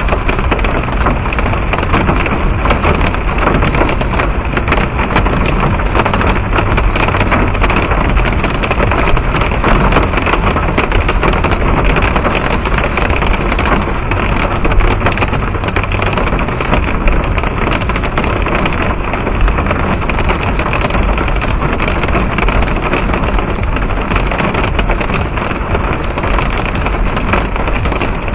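Small hail, mostly pea-size or smaller, pelting down steadily: a dense, continuous patter of tiny impacts, with a low rumble underneath.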